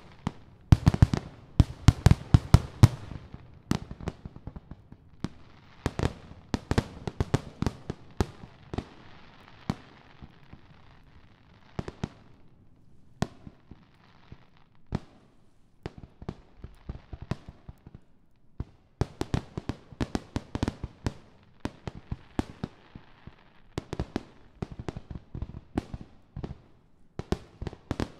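Aerial fireworks finale: a rapid barrage of shell bursts and bangs, densely packed for the first ten seconds or so, thinning to scattered bangs for several seconds in the middle, then building back to a dense barrage near the end.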